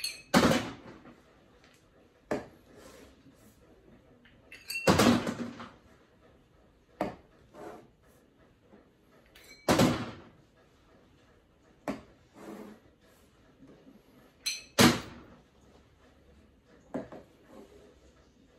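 Stemmed cocktail glasses being polished with a cloth and set down on a bar counter one after another: a series of short knocks and clinks every second or two, some with a brief rubbing sound.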